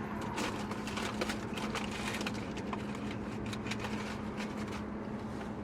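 Steady low hum, as in a car cabin, with many irregular light clicks and rustles on top, such as food wrappers being handled.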